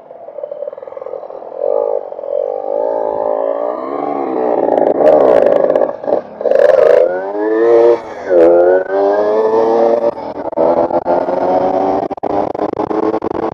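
Motorcycle engines accelerating and shifting up through the gears, the pitch climbing and dropping several times, most strongly between about four and nine seconds in.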